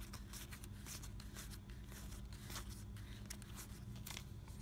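Faint rustling and soft flicks of playing cards being handled and sorted by hand, a string of small irregular clicks over a low steady hum.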